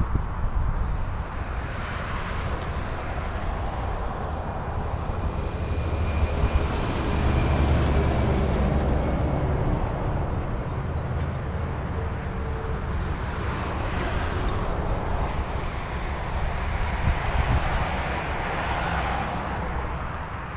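Motorway traffic: a steady rush of tyres and engines that swells several times as vehicles pass.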